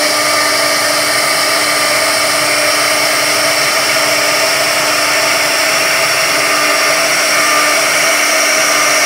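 CNC router spindle running at speed, its small carving bit milling a 3D relief into a wooden board: a steady whine over the hiss of the cut.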